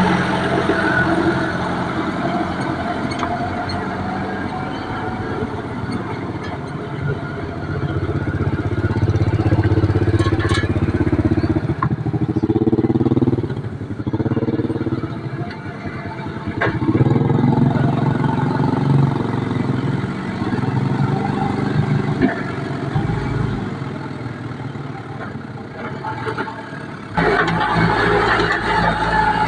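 Engine of a heavy log-handling machine running and revving up and down, with a few sharp knocks. The sound changes abruptly near the end.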